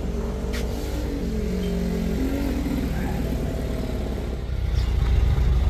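A motor vehicle engine running steadily, getting louder about four and a half seconds in.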